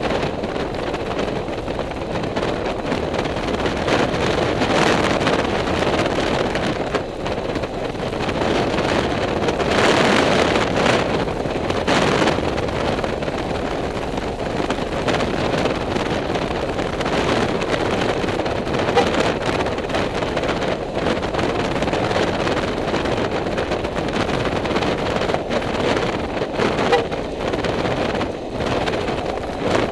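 Wind buffeting the microphone of a moving vehicle, a steady rush that swells and dips, with the vehicle's running and road noise underneath.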